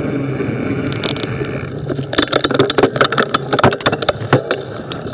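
Mountain bike rolling down a dirt trail, with a steady rumble of tyres and wind on the camera. About two seconds in, as the bike slows, comes a run of sharp, irregular clicks and rattles lasting a couple of seconds.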